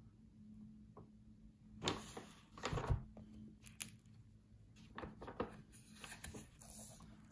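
Hands handling a hardcover notebook on crumpled kraft paper: scattered rustles and light knocks, with a soft thump about three seconds in, then more rustling as the front cover is opened near the end.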